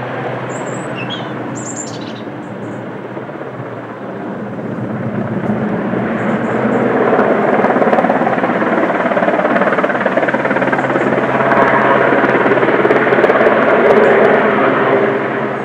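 Rescue helicopter's rotor and engine noise, swelling from about four seconds in and staying loud until it eases near the end. A few bird chirps are heard at the start.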